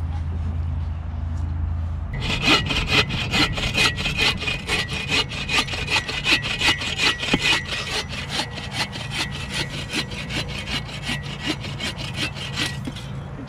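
Hand bow saw cutting through a dry driftwood log: a long run of quick, even back-and-forth rasping strokes, starting about two seconds in after a low steady rumble and stopping shortly before the end.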